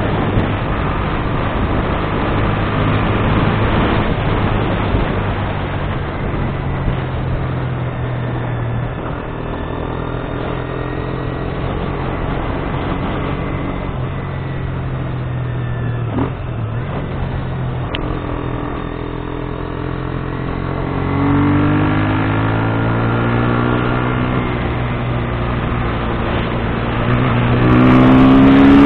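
KTM Duke 125's single-cylinder four-stroke engine running steadily while riding, its pitch rising twice, about 21 seconds in and again near the end, as the bike accelerates and the sound gets louder.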